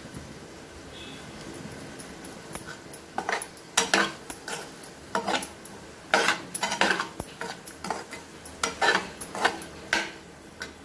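A steel spoon scraping and clinking against a frying pan as spiced potato cubes are stirred. The first few seconds are quiet, then a run of irregular scrapes and knocks starts about three seconds in and goes on until near the end.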